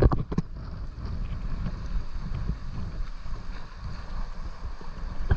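Seawater sloshing and lapping around a camera held at the surface, with a low rumble of wind on the microphone. A few brief splashes or knocks come in the first half second.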